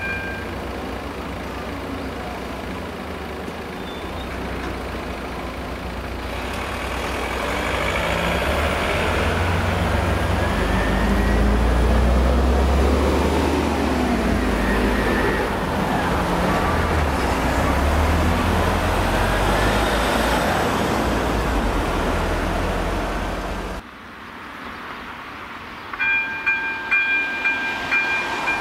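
Road vehicles, a bus among them, driving over the level crossing, their engine and tyre rumble swelling to a peak midway through. Near the end, after a sudden drop, the crossing's electronic warning bell starts ringing in quick repeated dings.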